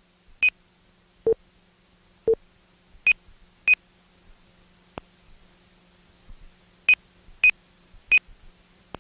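Short electronic beeps from a thermal-finder flight program's sound synthesizer: six high beeps and two lower ones (the low pair about a second in), spaced unevenly. These stereo cues guide the pilot toward the predicted thermal. A faint steady hum runs underneath.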